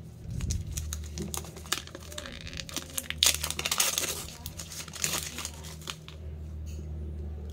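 Protective plastic film being peeled and crinkled off a JBL Wave Beam earbud charging case: a run of rustles and sharp crackles, loudest about three to five seconds in and settling near the end.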